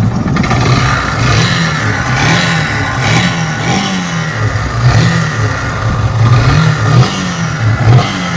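Yamaha FZ motorcycle's single-cylinder engine revved in about seven short throttle blips, the pitch rising and falling each time. It runs with the engine noise and lack of smoothness the customer complains of, after earlier repairs and a new bore did not cure it.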